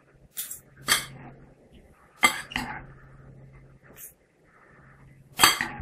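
Metal spoon and fork clinking and scraping against a glass salad bowl while a chickpea salad is tossed: a few sharp, irregular clinks, the loudest near the end.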